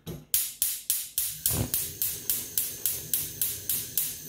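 Gas hob's spark igniter clicking rapidly, about four sharp clicks a second, as the burner is lit.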